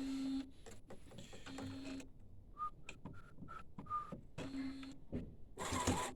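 Epson 1400-based DTG printer running its start-up initialization: its motors run in short stop-start spells with brief higher whines, and a louder mechanical rattle comes near the end.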